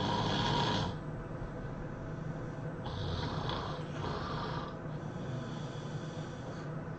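A person snoring heavily in loud, rasping breaths. One snore ends about a second in, another runs from about three to five seconds in, and the next begins at the very end.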